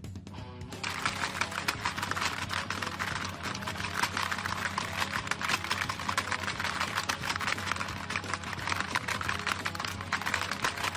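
Rapid plastic clattering of a Hungry Hungry Hippos game, its hippo levers pressed over and over so the hippo heads snap out across the board. It starts about a second in.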